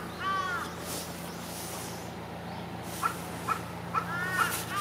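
Crows cawing: one harsh caw right at the start, a couple of short faint calls about three seconds in, and two more caws near the end, over a steady low hum.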